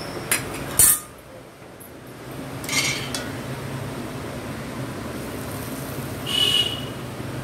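Steel cookware clinking and knocking as a kadai of hot jaggery syrup is lifted and poured through a steel tea strainer: a loud knock about a second in, a ringing clink near three seconds and another ringing clink late on.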